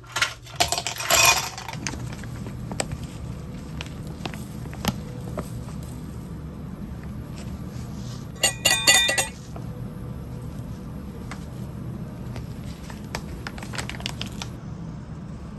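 Short bursts of clinking, about a second in and again near the middle, with a few scattered light ticks over a steady low hum.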